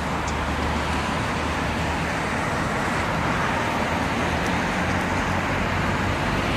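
Steady city street traffic: a continuous rumble and hiss of passing motor vehicles.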